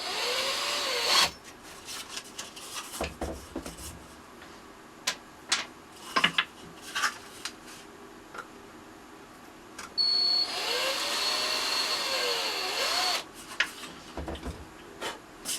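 Small electric power tool, most like a drill, running in two short bursts, about a second at the start and about three seconds from ten seconds in, its motor pitch rising and falling as it spins up and down. Light clicks and knocks of handling in between.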